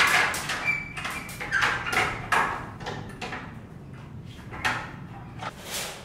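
A run of irregular knocks and scrapes, loudest at the start and again about two seconds in.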